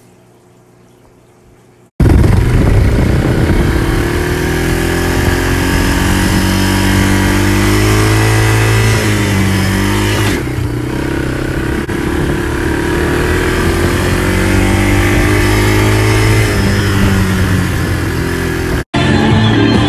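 An ATV's engine runs loudly while it is ridden along a dirt track. Its pitch rises and falls as the throttle is opened and eased, with a short drop about halfway through. It starts suddenly about two seconds in and cuts off just before the end.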